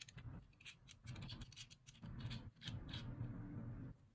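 Faint handling noise: scattered light clicks and scrapes over a low, uneven rumble as the plastic soldering gun and its cord are moved about by hand.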